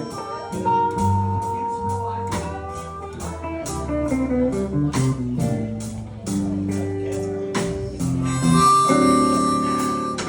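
Live blues band playing an instrumental passage: guitar and blues harp over upright bass and a steady drum beat.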